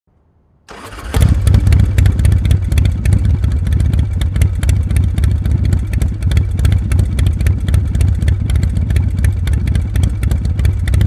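A motorcycle engine comes in just under a second in and runs steadily, with a rapid, even clatter over its low hum.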